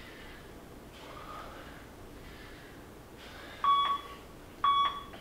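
Breathing during exercise, then two short electronic beeps from an interval timer, one second apart, starting about three and a half seconds in: the countdown to the end of the work interval.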